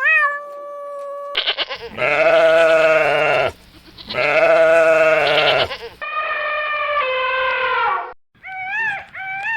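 Goats bleating: a string of separate long calls with abrupt cuts between them, followed near the end by several short, wavering higher-pitched cries.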